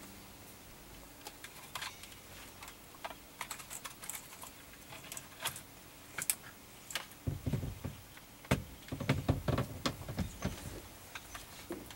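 Scattered small plastic clicks and taps as the clock spring's wires are fed through the steering wheel, with duller bumps and rubbing in the second half.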